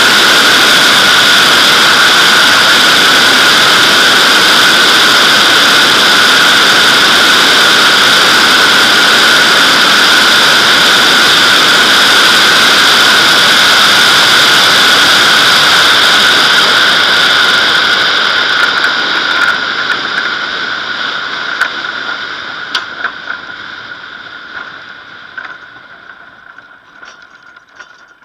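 Loud rushing airstream over a Nimbus-2 glider's fuselage with a steady whistling hum, heard from a camera on top of the fuselage during the brake-parachute landing approach. About two-thirds of the way in it begins to die away as the glider slows after touchdown, and scattered knocks and rattles come through as it rolls out on grass.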